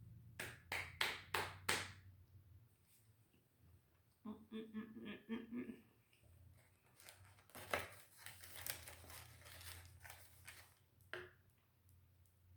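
Close-miked eating sounds: a few sharp mouth clicks, a handful of short hummed "mm" notes, then a stretch of crisp rustling and crunching while chewing a deli sandwich.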